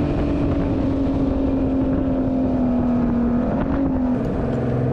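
Motorboat engine running steadily, its pitch sinking slightly and then shifting about four seconds in, over a rough rumbling noise.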